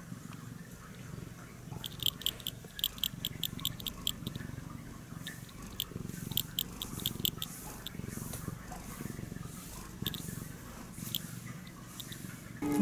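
Domestic cat purring steadily close up while being stroked, with runs of small quick clicks from its mouth and tongue.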